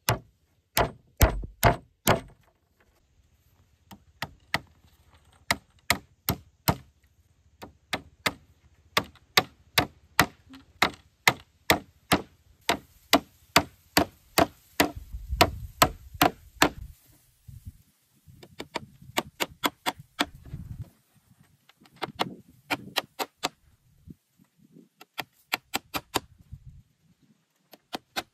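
Wood being struck by a hand tool, blow after blow about twice a second, in runs with short pauses between them.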